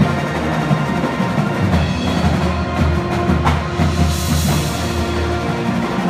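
High school marching band playing a tune in a gymnasium: brass including trumpets and sousaphones holding notes over a strong bass line, with drums and front-line percussion keeping time, and a cymbal crash about four seconds in.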